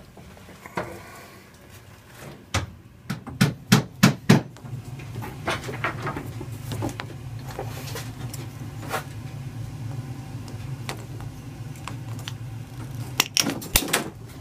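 Sharp knocks and clicks, a handful of loud ones between about two and a half and four and a half seconds in and another cluster near the end, over a steady low hum that starts about four and a half seconds in.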